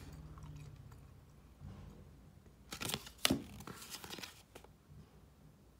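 Cardboard trading cards being slid across one another and flipped through in the hands, with a few brief papery swishes in the middle.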